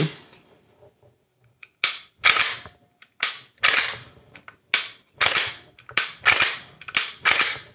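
Glock-pattern pistol with a 3D-printed frame being dry-cycled: slide racked and trigger pulled over and over, giving sharp clicks in quick groups of two or three about once a second, starting about two seconds in. The trigger now resets on every cycle, after the trigger bar's cruciform was bent up to catch properly.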